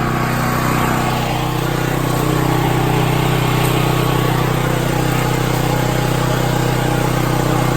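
Duromax portable generator's engine running steadily at constant speed after starting.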